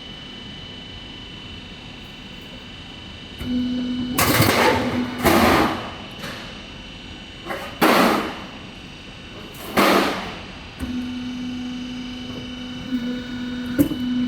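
Metal roof tile roll-forming machine running: a steady motor hum broken by four loud bursts of noise, the first two close together and the others about two seconds apart.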